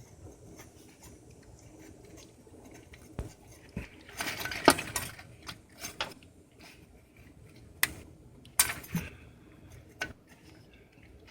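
Scattered metallic clicks, clinks and knocks of a speed sensor, its bolt and hand tools being handled while the sensor is refitted to the transmission. A busier clatter comes about four to five seconds in, and a few sharp single clicks follow.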